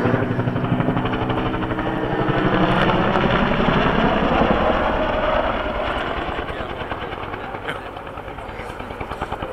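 Bell AH-1 Cobra helicopter flying, its rotor beating in fast, even pulses. It grows loudest a few seconds in, then fades somewhat.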